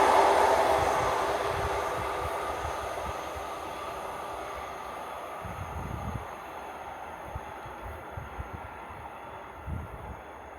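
Class 153 single-car diesel unit running away from the listener, its rail noise and engine rumble fading steadily. A few soft low thumps in the last few seconds.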